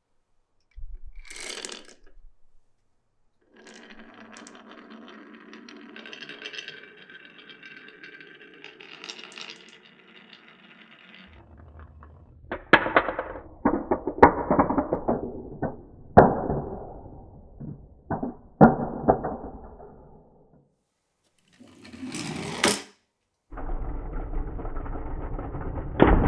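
Marbles running through a wooden marble run. First comes a long stretch of even rolling rattle, then a string of sharp knocks and clacks over a low rumble, then a brief burst, then more rolling near the end.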